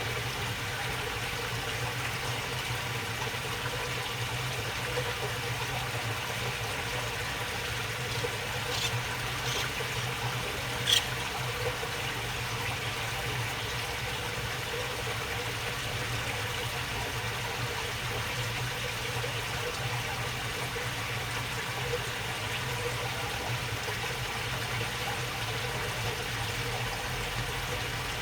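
Water babbling steadily along a shallow channel, an even rushing trickle, with a steady low hum underneath. A few brief sharp clicks come about nine to eleven seconds in, the last the loudest.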